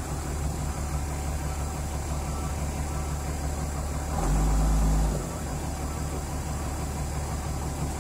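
Komatsu PC200LC-3 excavator's six-cylinder turbo diesel engine idling steadily, swelling louder for about a second about four seconds in.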